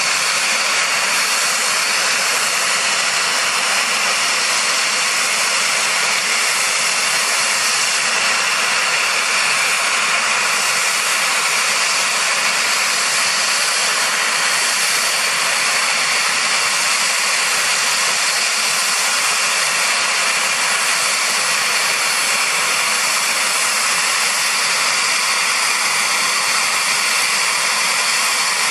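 Steady, unchanging turbine hiss and whine from a UH-60JA Black Hawk helicopter running during start-up, with the main rotor still stopped so there is no blade beat.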